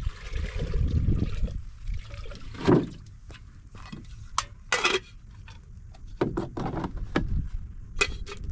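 Water poured from a plastic jug into a small kettle for about the first second and a half, followed by scattered knocks and clinks of the containers and kettle being handled.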